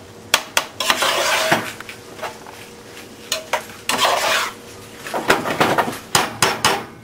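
Metal spoon repeatedly knocking and scraping against the bottom of a frying pan, breaking up clumps of cooked ground chicken: irregular sharp clanks with scraping between them, coming thickest near the end.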